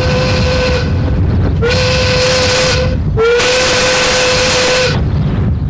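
A loud whistle blows three long blasts at one steady pitch, each sliding up briefly before it holds; the first is already sounding at the start. A steady low rumble runs underneath.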